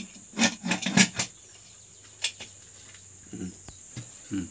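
Clanking of an aluminium pressure cooker's lid and handle as it is closed and locked, several sharp metal clanks about half a second to a second in, over steady cricket chirring. A click follows, then two softer knocks near the end.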